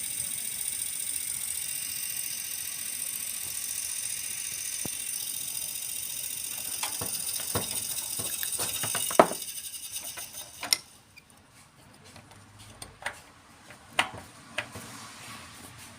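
Desktop computer fan running with a steady high-pitched whirring hiss, the noise of a fan loud enough to need fixing. About ten seconds in it dies away, followed by scattered clicks and knocks.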